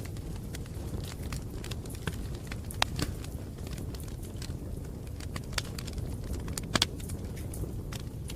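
Campfire burning: a steady low rumble with irregular sharp crackles and pops from the burning wood, a couple of them louder than the rest.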